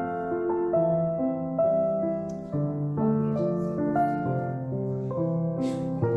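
Background music: a gentle piano melody with notes changing about every half second.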